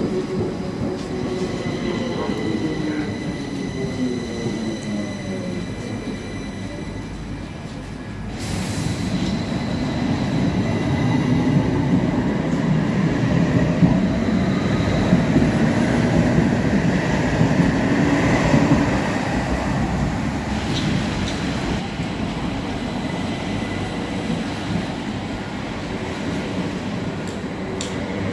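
Stockholm metro train running past, its motor whine falling in pitch over the first few seconds. After a cut, a light-rail tram passes close by with louder wheel-on-rail rumble and a thin high squeal from the wheels.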